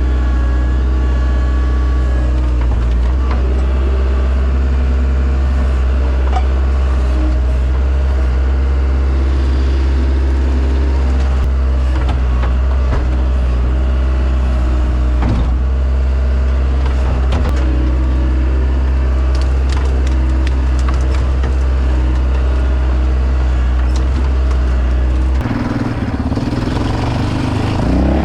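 CAT 242B skid steer's diesel engine running steadily at working speed, with scattered light knocks and clanks. The sound changes character near the end.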